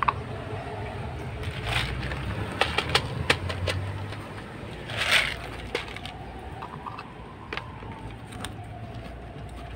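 Dry cat kibble rattling out of a clear plastic jar onto concrete, with scattered sharp clicks and one short louder rush about five seconds in, while a tabby cat crunches the pellets.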